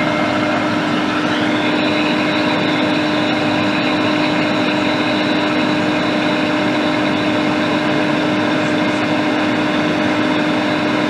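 Hot air rework station blowing: a steady fan whir and hiss of air with a constant hum. One tone shifts slightly higher about a second and a half in.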